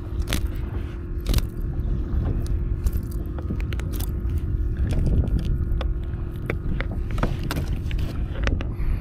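Handling noise on a fishing kayak: irregular clicks, knocks and scrapes over a low rumble, with a faint steady hum underneath.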